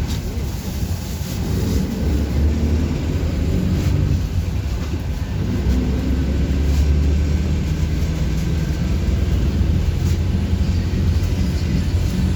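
City bus engine and road noise heard from inside the cabin while riding: a continuous low engine drone whose pitch shifts a few times as the bus changes speed.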